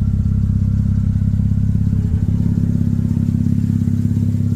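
Mazda RX-8's twin-rotor rotary engine idling steadily at about 1,000 rpm, warmed up, before the radiator fan has cut in.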